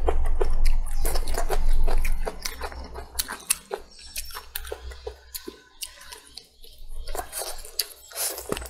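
Close-miked eating: a bite of crisp lettuce leaf, then chewing with many wet clicks, smacks and crunches. It is louder for the first two seconds and softer after, with another bite of braised chicken near the end.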